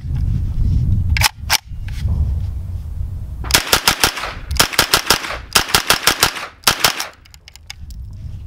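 Century Arms NAK9-X 9mm AK pistol firing steel-cased rounds, a string of rapid semi-automatic shots in quick groups lasting about three seconds. Two sharp clacks come about a second in, before the shooting starts.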